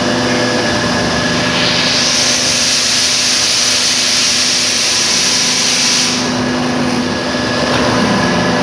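400-ton H-frame hydraulic forging press running, its hydraulic power pack giving a steady hum with constant tones. About one and a half seconds in a loud hiss starts and runs for about four and a half seconds, then cuts off.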